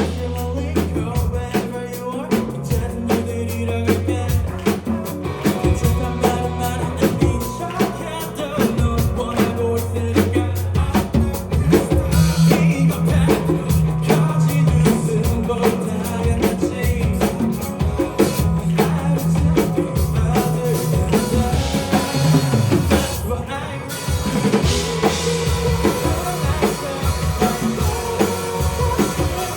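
A live band playing a rock song, led by a busy drum kit with fast, steady hits over held bass notes; the drums drop out briefly about two-thirds of the way through.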